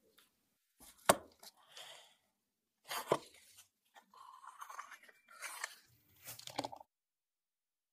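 Close-up handling sounds of snow-skin mooncakes: a sharp click about a second in, the loudest sound, then the plastic mooncake mold pressed down with scratchy rubbing. Near the end a knife cuts through a mooncake onto a wooden board with a soft thud.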